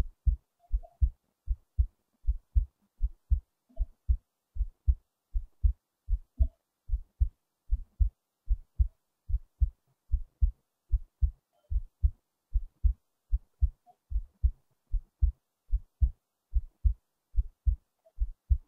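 Human heartbeat recorded close up: a steady rhythm of paired low thumps (lub-dub), a little over one beat a second.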